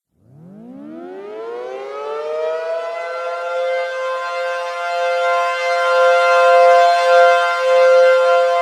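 Civil defense siren winding up from silence, rising in pitch over about three seconds, then holding a steady wail on two pitches sounding together. It sounds the alert for a national emergency.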